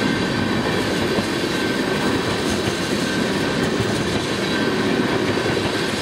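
Tank cars of a freight train, an oil train, rolling past close by: steel wheels on the rails making a steady rumble.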